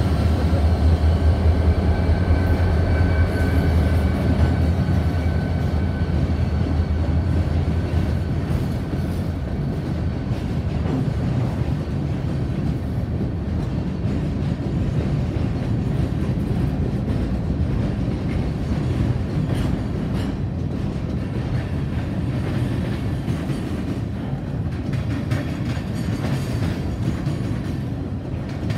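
Great Lakes Central diesel locomotives passing close by, their engine sound fading over the first eight seconds or so. Then a long string of open-top freight cars rolls past with a steady rail rumble and the clickety-clack of wheels over the track joints.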